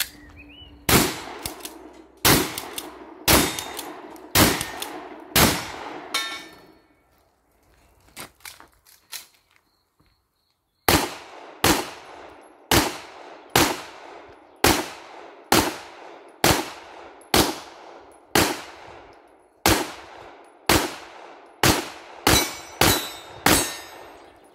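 Pump-action shotgun fired about six times, roughly a second apart, with the action worked between shots. After a few seconds' pause, a handgun fires steadily at about one shot a second to the end, about fifteen shots, and a metallic ringing follows a few of the shots.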